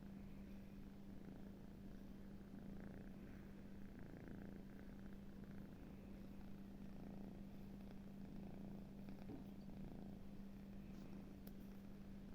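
Sleeping kitten snoring softly, a faint continuous purr-like rattle, over a steady low hum.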